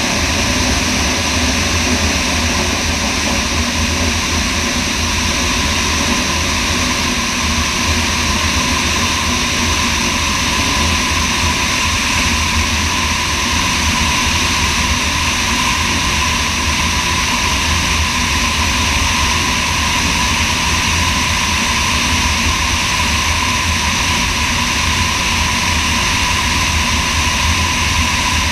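Sonex light aircraft in steady flight: its engine and propeller running at a constant, unchanging pitch, under a heavy rush of wind on a camera mounted outside below the wing.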